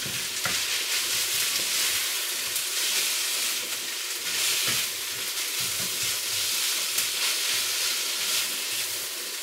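Washed rice frying in oil in a pan, sizzling steadily while a utensil stirs it, with a few light scrapes and taps.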